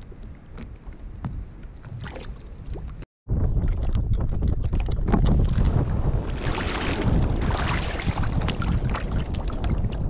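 Wind buffeting the microphone over open water, a steady low rumble with small clicks and splashes mixed in. The sound cuts out for a moment about three seconds in, then the wind comes back louder.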